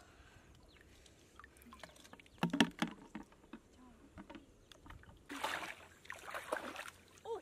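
A few sharp clicks about two and a half seconds in, then shallow muddy water sloshing and splashing as metal tongs are dipped into it in the last couple of seconds.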